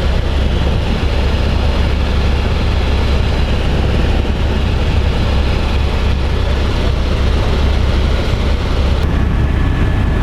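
Helicopter in flight heard from inside the cabin: a loud, steady, deep drone of rotor and engine with a rushing noise above it.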